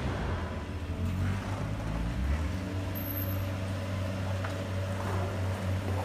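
Steady low engine drone of an RC model CAT compact track loader running.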